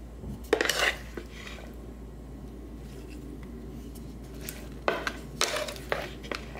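Wooden spatula tossing salad in a wooden bowl: the leaves rustle and the spatula scrapes and knocks against the bowl in two short bursts, one about half a second in and a longer one near the end.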